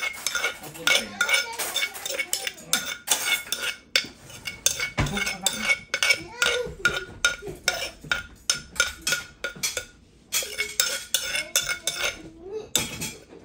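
Metal spoon scraping and clinking against the inside of a wooden mortar as papaya salad is scooped out onto a plate, in quick irregular strokes with a dull knock about five seconds in and a short pause near ten seconds.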